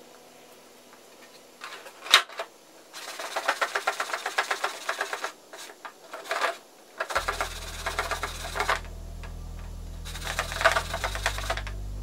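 Rapid mechanical clicking, about ten clicks a second, in several bursts of one to two seconds, with a single sharp knock about two seconds in.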